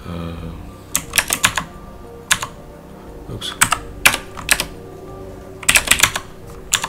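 Typing on a computer keyboard: short runs of quick keystrokes, with pauses of about a second between the runs.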